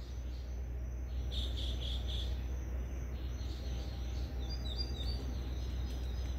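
Night insects chirping in short runs of quick, high-pitched pulses, about five a second, with a few higher stepped chirps later on, over a steady low hum.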